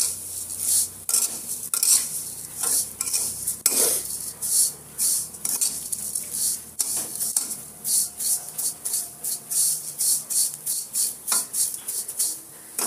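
Metal spatula scraping and stirring thin wheat vermicelli in ghee around a steel kadhai, in quick regular strokes with the dry strands rustling and a light sizzle under them. The vermicelli is being roasted in ghee until it turns golden-reddish.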